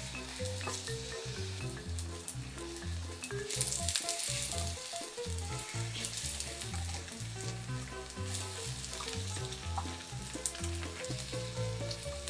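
Batter-coated zucchini slices (hobak-jeon) sizzling in oil in a frying pan; the sizzle swells about a third of the way in. Background music with repeating notes plays underneath.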